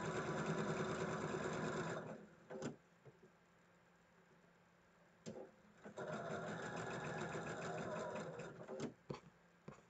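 Electric sewing machine stitching patchwork pieces in two runs of about two to three seconds each, with a pause of about four seconds between them. A few sharp clicks come between and after the runs.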